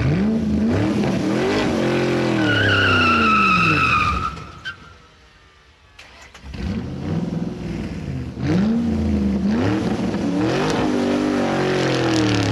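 A car engine revving hard, its pitch sweeping up and down again and again, with a long tyre squeal from a drift about two to four seconds in. The engine sound drops away briefly around the middle, then the revving starts again.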